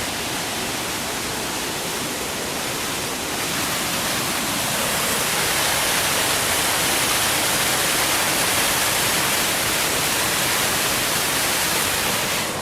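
Waterfall rushing steadily, a mountain torrent in spate after heavy rain; the rush grows a little louder about three and a half seconds in.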